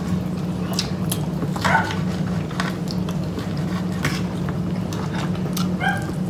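Cutlery clinking and scraping on plates with chewing, over a steady low hum, while a small schnauzer whines briefly twice, about two seconds in and near the end.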